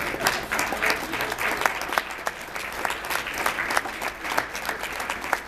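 Audience applauding: a dense patter of hand claps, with a few sharper single claps standing out.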